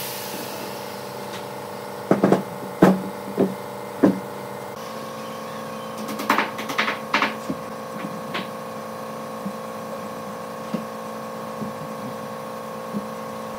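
A few sharp knocks of wooden pieces set down on a wooden workbench, then short crackly squirts of wood glue from a plastic squeeze bottle onto a log leg's joint, followed by faint ticks of wood being handled.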